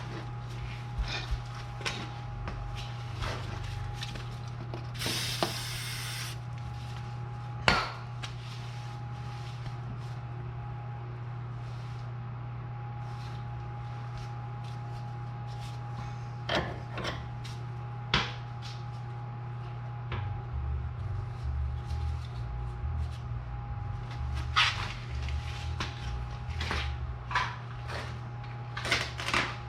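Scattered metallic clicks and knocks of hand tools being worked and handled on the car's steering parts, with a brief hiss about five seconds in. A steady low hum and a faint high tone run underneath.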